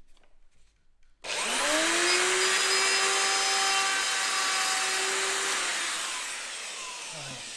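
Electric wood router switched on about a second in, spinning up and running as it cuts into wood, then winding down near the end.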